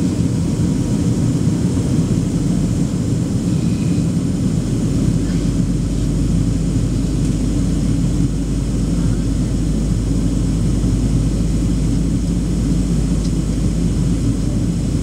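Steady cabin noise inside a Boeing 737-800 in flight on descent: the low, even roar of its CFM56 jet engines and the airflow, heard from a window seat by the wing.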